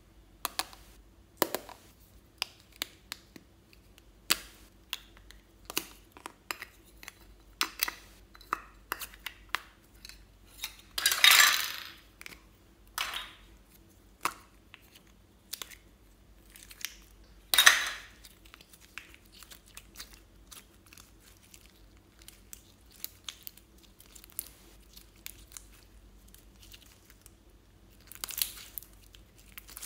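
Slime being handled by hand: irregular sticky clicks and squelches as it is pulled out of plastic ice-cream-cone toy containers and pressed together. There are two louder, longer squelches, about 11 and 17 seconds in.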